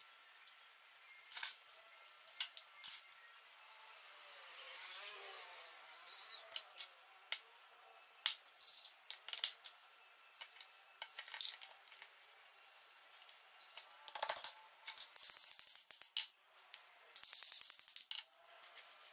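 Metal lathe parts and hand tools clinking and tapping against each other at irregular intervals, as during reassembly of the lathe's gearbox and feed mechanism.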